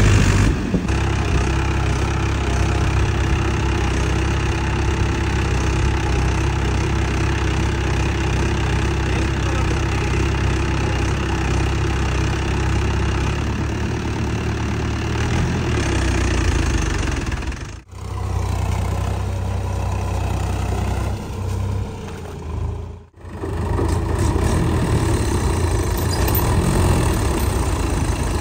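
Swaraj 843 XM tractor's diesel engine running steadily as it sits stuck in deep mud, with two brief dropouts in the sound about two-thirds of the way through.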